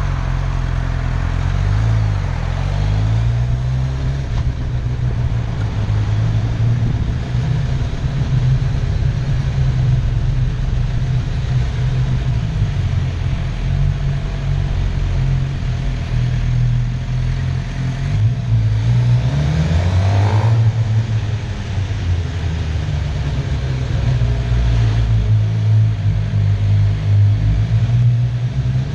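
Wind noise buffeting a GoPro Hero4 Session's microphone as a heavy, steady rumble, over a vehicle engine whose pitch rises and falls with the throttle, climbing noticeably about two-thirds of the way through.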